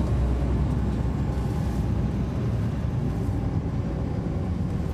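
Caterpillar C13 ACERT inline-six diesel engine of a 2009 NABI 40-SFW transit bus running steadily, a low rumble heard from inside the bus.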